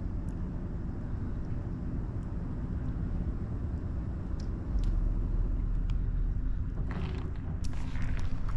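Vehicle engine idling with a steady low rumble, with some rustling near the end.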